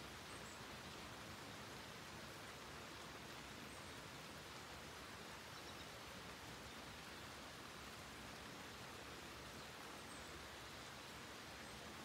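Faint, steady hiss of light rain falling, with a few faint, high bird chirps here and there.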